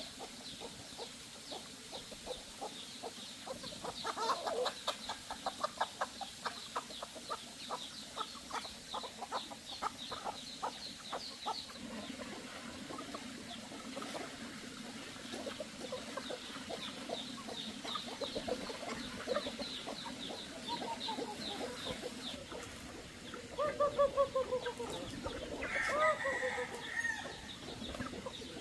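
Chickens clucking in fast runs of short calls, over a steady high chirping. A few louder, drawn-out falling calls come near the end.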